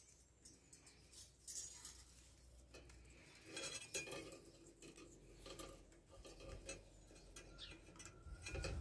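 Faint handling sounds: small clicks and rustles of a thin wire being threaded through a black plastic nut.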